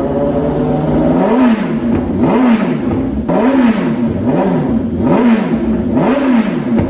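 BMW S1000RR's inline-four engine through an aftermarket exhaust, revved in six quick blips about a second apart, each rising and dropping back toward idle after a short steadier stretch at the start.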